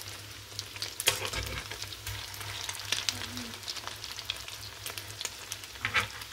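Oil sizzling and crackling steadily as egg-coated triangles shallow-fry in a pan. A few sharper clicks and scrapes come from the metal slotted turner flipping them: one about a second in and another near the end.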